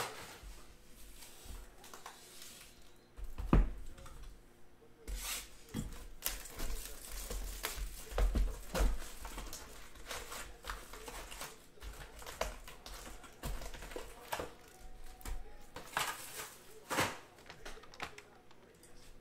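Foil trading-card packs being handled: pulled one by one from a hobby box and set down in stacks, giving irregular crinkles, taps and clicks.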